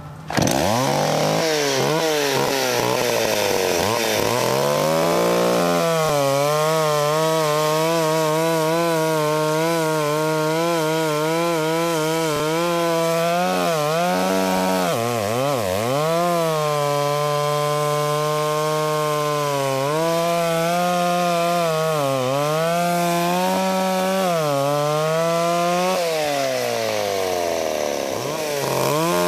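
Vintage mid-size two-stroke chainsaw bucking a log. It comes in loud about half a second in and swings up and down in revs for a few seconds. It then holds at high revs through the cut, dipping briefly several times as the chain loads up in the wood. Near the end it drops to idle and revs up again.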